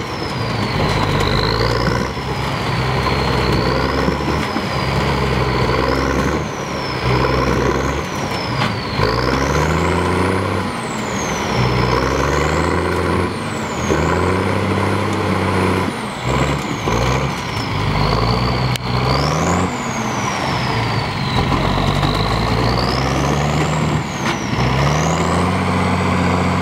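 Engine of a big lifted mud-bogging truck revving over and over, about every two seconds, with a high whine that rises and falls with each rev. The truck is hung up on top of a junked car and the revs are the driver trying to drive it free.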